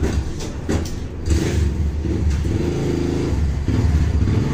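A motor vehicle engine running, with a couple of sharp knocks about a second in.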